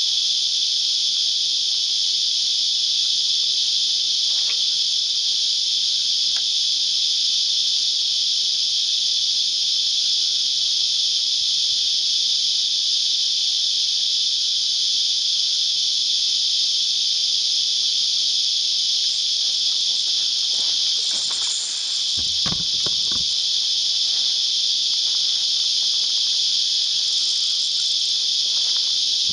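Cicada chorus: a loud, steady, unbroken high-pitched drone. A few faint low bumps come about three-quarters of the way through.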